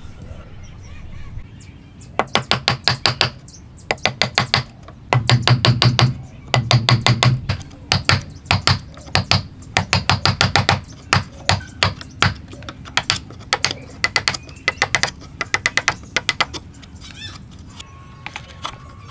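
Wood chisel being driven into a clamped wooden block by fast, light strikes, in runs of about eight taps a second. The tapping stops about three seconds before the end.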